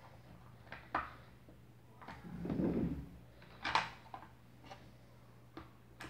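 Small white plastic switch box being handled and fitted onto a wooden board: a few sharp plastic clicks and knocks, the loudest a little before the four-second mark, with a short dull rub or scrape between about two and three seconds in.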